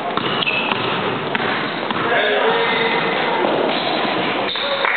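Basketball game sounds in a large sports hall: a ball bouncing on the court floor with occasional sharp knocks, under players' voices calling out.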